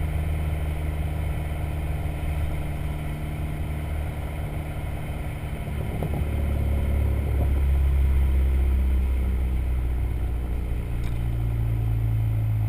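Dodge SRT-4's turbocharged 2.4-litre four-cylinder running through its stock exhaust on a Stage 1 tune, with a few exhaust pops and crackles about six and seven seconds in. The engine gets louder from about six and a half seconds in.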